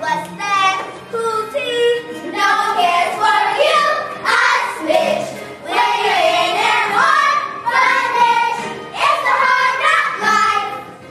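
Children singing a melody in held, pitched notes, cutting off abruptly at the end.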